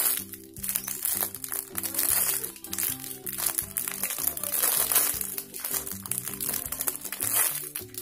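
Thin clear plastic bag crinkling as it is handled around a foam squishy, over background music with a steady run of low notes.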